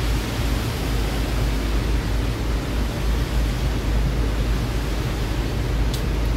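Steady low rumble and hiss of an 81-765 'Moskva' metro car standing at a station platform with its doors open, with a faint tick near the end.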